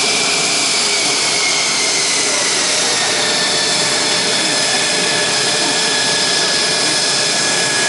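The F110 turbofan of a Mitsubishi F-2 fighter running on the ground during an engine run-up: a steady, loud jet roar with a high whine that drops slightly in pitch two to three seconds in.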